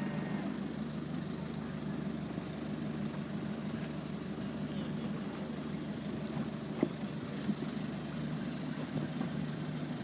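An engine idling steadily, with two brief sharp knocks about seven seconds in.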